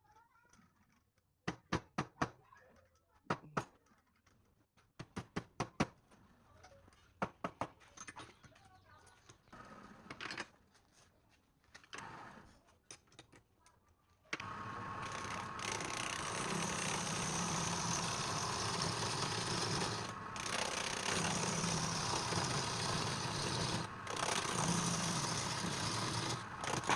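Clusters of sharp wooden knocks and clicks, then, about halfway through, a wood lathe's steady running noise starts abruptly, with a low hum.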